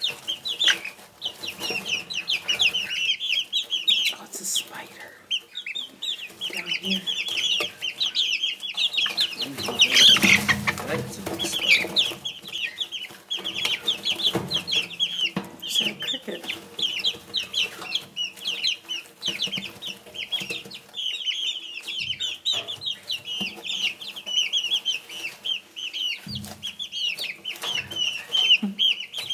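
A flock of young bantam chickens peeping continuously, many short high chirps overlapping, with a brief louder rush of noise about ten seconds in.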